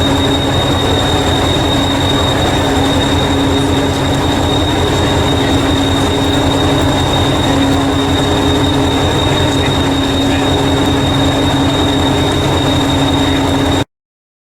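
Train running steadily, with a fast low rumble and a thin high whine, cutting off suddenly near the end.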